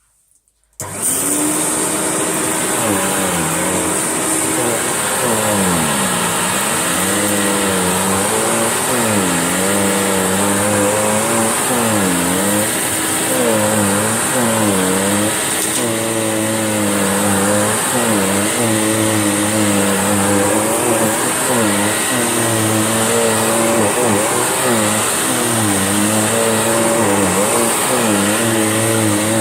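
Electrolux Turbo2 Super vacuum cleaner switched on about a second in, then running steadily while pushed back and forth over carpet, with a constant high whine. Its lower pitch dips and rises again with each stroke as the load changes.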